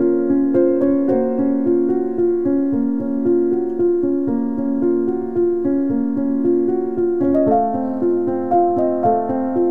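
Background music: piano or electric keyboard playing steady, sustained chords that change about every half second.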